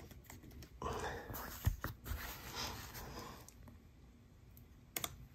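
Quiet room tone with a faint breath and light handling noise, and two small clicks about three seconds apart.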